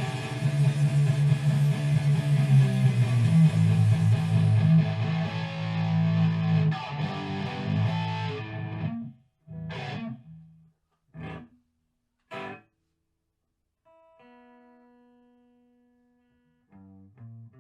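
Background music led by electric guitar. It is full and steady for about nine seconds, then breaks into three short stabs with silent gaps between, followed by a few quieter held notes.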